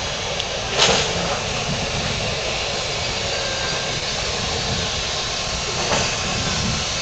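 BART train approaching along the track into an underground station, a steady rumble and hiss of the train on the rails. A brief, sharp burst of noise stands out about a second in, and a weaker one comes near the end.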